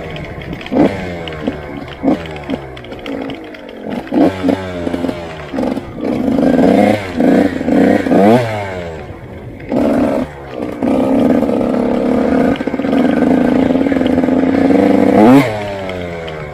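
Supermoto motorcycle engine ridden off-road, heard on board. It revs in short throttle bursts that fall away as it decelerates, then holds steady high revs for several seconds before dropping off sharply near the end.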